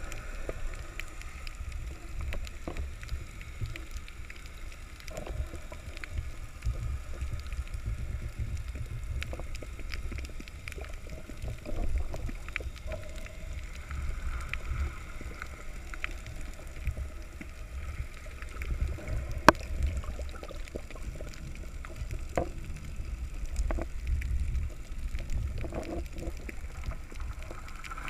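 Underwater sound picked up by a submerged camera: a muffled, unsteady low rumble with scattered clicks and taps, one sharp click about two-thirds of the way through.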